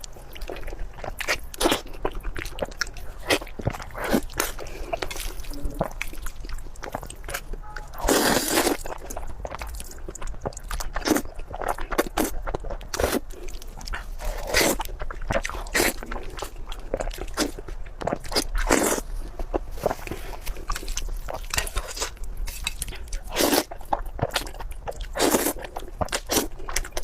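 A person eating: irregular bites, chewing and crunching, with a longer, louder crunch about eight seconds in.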